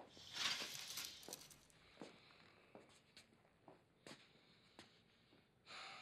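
Hospital privacy curtain pulled shut along its ceiling track, a rattling swish of its hooks lasting about a second and a half. Then a few faint scattered clicks and shuffles, and a short breath near the end.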